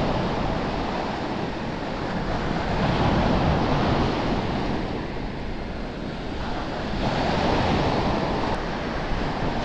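Sea surf breaking and washing up onto a pebbly shore: a steady rush of water that swells and eases as the waves come in.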